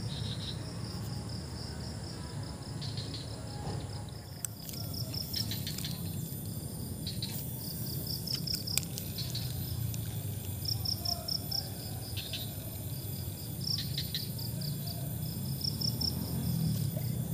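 Insects chirping in short, high-pitched pulsed trills that start and stop every second or two, over a steady low rumble, with a few sharp clicks in between.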